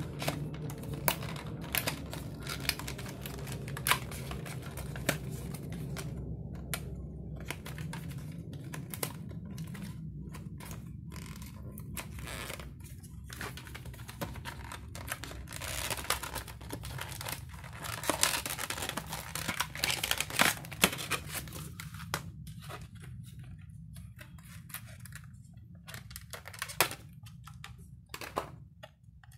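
SSD retail packaging being opened by hand: tearing, crinkling and irregular clicks and taps of cardboard and plastic, thinning out over the last several seconds, over a low steady hum.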